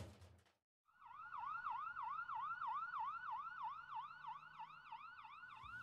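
After about a second of silence, an emergency-vehicle siren starts in fast yelp mode: quick rising-and-falling wails, about four a second, faint and growing a little fainter toward the end.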